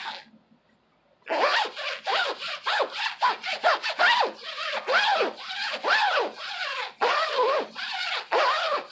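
Small plastic zipper on a spring windbreaker being run rapidly up and down, starting a little over a second in. It makes a quick series of loud rasping strokes, each rising and falling in pitch.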